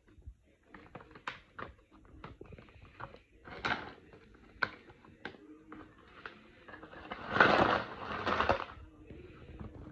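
A plastic zip bag of mineral specimens crinkling, with small rocks clicking against each other. About seven seconds in comes a louder clatter as the rocks tumble out of the bag into a cardboard box.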